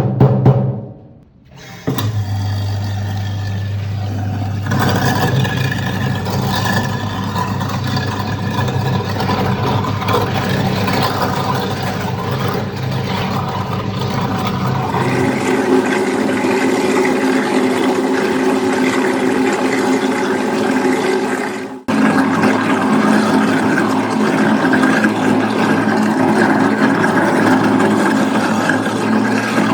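Garbage disposals running, grinding food scraps. A low, steady motor hum runs for about the first half, then gives way to a different, higher-pitched running sound, with a brief cut about two-thirds through.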